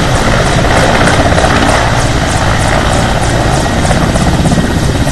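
Large helicopter hovering low and descending to land, its main rotor thudding about four times a second over the loud rush of turbine and downwash.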